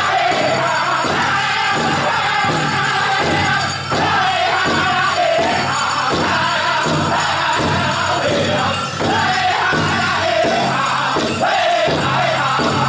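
Powwow drum group singing a chicken dance song in high voices over a steady, even drumbeat on a large shared drum, with dancers' bells jingling.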